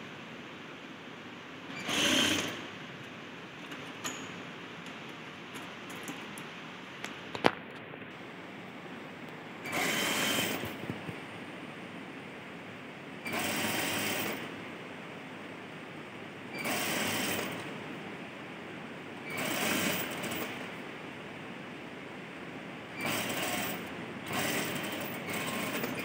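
Sewing machine stitching a folded hem on a sleeve in about seven short runs of roughly a second each, with pauses between. There is one sharp click about seven and a half seconds in.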